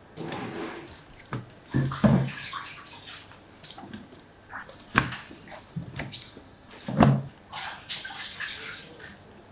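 Raw kazy horse-meat sausages being handled and shifted in a wet plastic tub: irregular wet slaps and sloshing, with a few louder thumps about two, five and seven seconds in.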